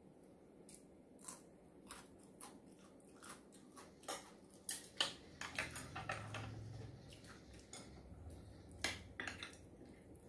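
Eating sounds: a metal spoon and chopsticks clicking irregularly against ceramic bowls, mixed with chewing. The sharpest clicks come about five seconds in and again near nine seconds.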